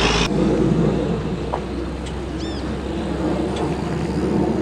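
Boeing 737-200's Pratt & Whitney JT8D jet engines heard as a steady, low rumble from the airliner passing overhead. A high whine cuts off just after the start, and a short bird-like chirp comes about halfway through.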